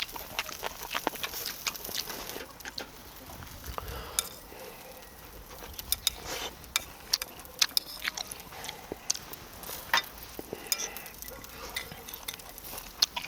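Light, irregular clicks and clinks of utensils and dishes while eating, with quieter stretches between.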